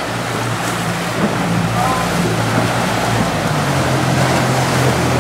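Outboard motor of a small inflatable boat running steadily, a low drone whose pitch shifts slightly a few times, under a constant rush of wind and water against the hull.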